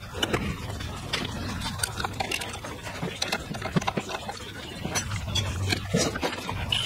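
Scattered light clinks and taps of hand tools and metal engine parts being handled on a workbench, over a steady low shop hum.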